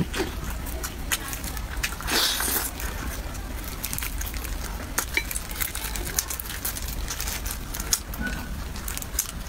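Close-miked eating sounds of braised pork ribs: wet smacking clicks of chewing and biting, with a short tearing rustle about two seconds in as the rib is pulled apart, over a low steady hum.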